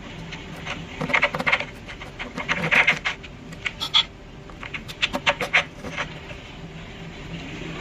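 Clusters of quick clicks and light rattling taps, some bursts lasting about half a second, over a faint steady low hum.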